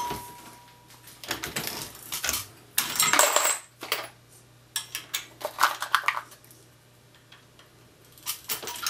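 Lee Loadmaster progressive reloading press being cycled by hand: metallic clicks and clinks of brass .223 cases being set in the shell plate and loaded rounds dropping into the metal-free plastic bin, in about four bursts with short quiet gaps between them.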